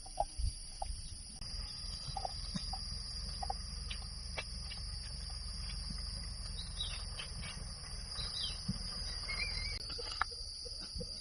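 Outdoor nature sound: a steady high-pitched drone throughout, with scattered short bird calls, a few quick falling and warbling chirps past the middle, and light clicks and rustles over a low rumble.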